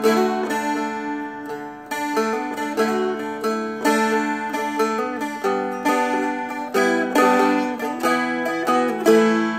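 A Seagull Merlin, a four-string diatonic dulcimer-style instrument, is flatpicked through a melody line of single picked notes. The open strings ring on as a steady drone beneath the melody.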